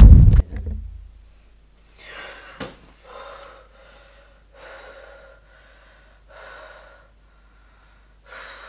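A person's heavy, gasping breaths, about one every second and a half. Before these, a loud low sound cuts off about half a second in.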